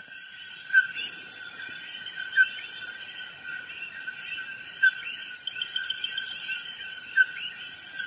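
Insects trilling steadily in several high pitches, with a short, slightly louder chirp about every two and a half seconds.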